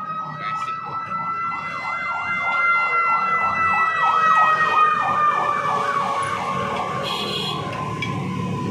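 An emergency-vehicle siren wailing. Its pitch climbs slightly and then slides slowly down, it is loudest around the middle, and a faster warbling tone runs beneath it over a low rumble.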